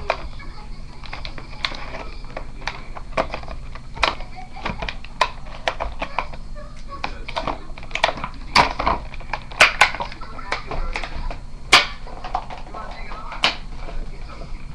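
Stiff plastic retail packaging being worked open by hand: a run of irregular sharp crackles and snaps, thickest and loudest in the second half.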